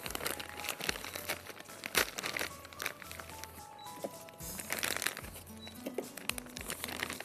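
Background music over crinkling and scattered sharp clicks as frozen strawberries are measured out into a cup.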